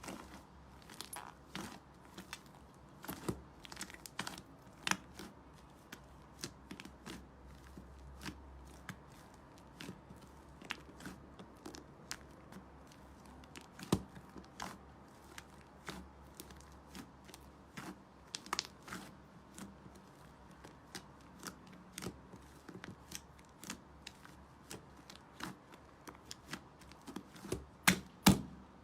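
Slime being squeezed and stretched by hand, giving an irregular run of sharp clicks and pops, several a second, with a louder cluster near the end.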